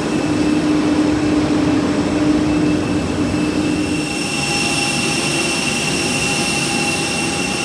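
Steady whine and rush of a jet airliner's turbine on the apron, with a low steady tone that fades about four seconds in as several high, steady whistling tones grow stronger.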